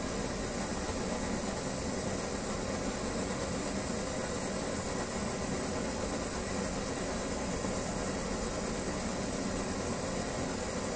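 Brass pressurized kerosene stove (Primus-type) burning with a steady, even hiss.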